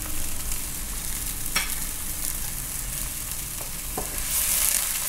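Soy, mirin and rice-vinegar sauce with scallions sizzling and bubbling in a hot nonstick pan while it is stirred with a wooden spatula, with a couple of short knocks of the spatula against the pan. The hiss grows brighter near the end.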